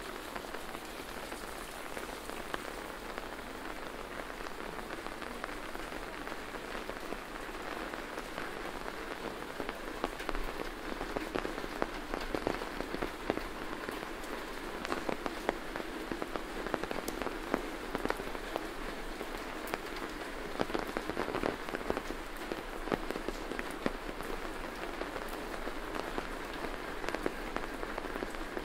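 Steady rain falling, with many individual drops ticking close by; the drop clicks grow denser and louder from about ten seconds in.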